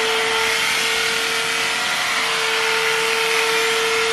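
Electric cattle clippers running with a steady hum, clipping the long hair off a calf's side.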